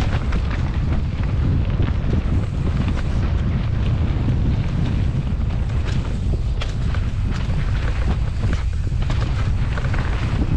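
Mountain bike descending a dirt singletrack at speed: heavy wind buffeting on the helmet-mounted camera's microphone, with frequent short knocks and rattles from the bike over the rough trail.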